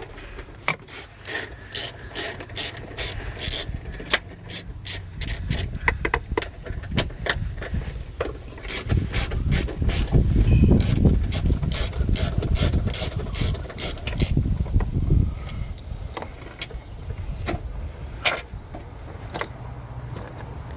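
Ratchet wrench clicking in runs, about three to four clicks a second, as a 10 mm socket on an extension turns out an air box bolt. Heavier low rumbling of handling the parts comes in around the middle.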